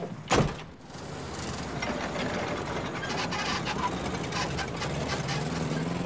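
A car door slams shut about a third of a second in. Then an old compact hatchback's engine runs with a clatter as the car drives off, its pitch rising near the end.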